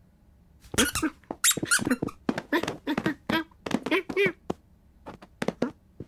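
Cartoon cat's squeaks and chirps: a quick run of short, high calls, many bending up and down in pitch, starting about a second in and going on almost to the end.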